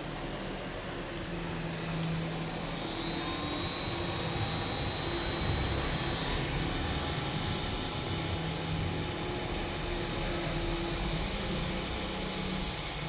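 Handheld hot-air blower, the hair-dryer-like kind used for desoldering, running steadily with a rushing airflow and a faint high motor whine.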